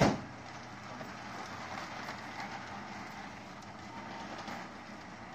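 Model passenger train running on its track loop, a steady rumble of wheels and motor on the rails. A sharp click comes right at the start.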